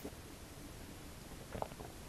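Yellow mustard squirted from a plastic squeeze bottle onto fries: one short squirt about one and a half seconds in, over faint room tone.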